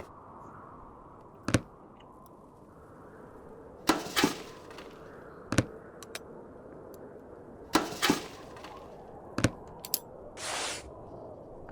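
Sharp taps and clicks of small hard objects being handled, about eight of them at irregular spacing, some in quick pairs, with a short hiss near the end.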